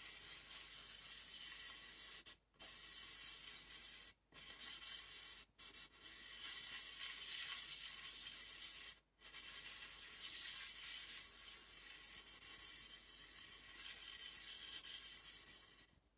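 Aluminium oxide sharpening stone rubbed over silicon carbide powder and oil to flatten it: a steady gritty scraping, broken by short pauses at about 2.5, 4, 5.5 and 9 seconds in.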